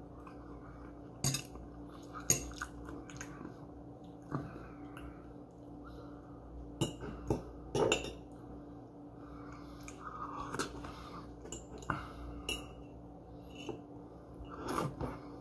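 Metal fork clinking and scraping against a ceramic plate and bowl, in scattered single taps with a cluster of several about seven to eight seconds in, and soft chewing between them.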